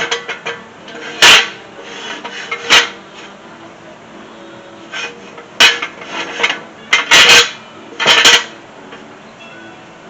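Steel jack stand being set and adjusted under a raised car: a series of sharp metal clanks and rattles, about six of them, a couple grouped close together near the end.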